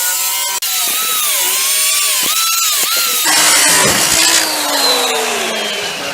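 Electric power saw cutting a plexiglass sheet, its motor whine dipping in pitch several times as it loads up, then sliding slowly lower in the second half before it cuts off right at the end.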